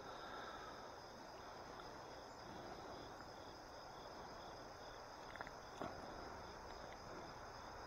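Faint, steady chorus of insects, a high pulsing trill. Two small clicks come a little past the middle.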